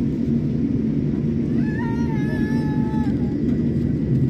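Airliner engines giving a loud, steady low rumble during take-off, with a held higher tone, like a voice, lasting about a second and a half in the middle.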